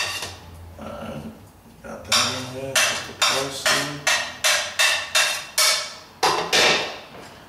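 A utensil knocking against a mixing bowl, a run of sharp taps about two a second starting about two seconds in, as seasoning ingredients are put into the bowl and mixed.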